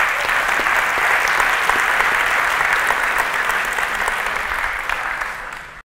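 Audience applauding steadily. The applause eases slightly, then cuts off suddenly near the end.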